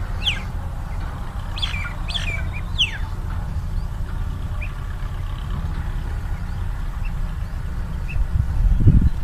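Quail calling with short, sharp chirps that sweep downward in pitch: four close together in the first three seconds, then a few fainter ones. A steady low rumble runs underneath, and a low thump comes near the end.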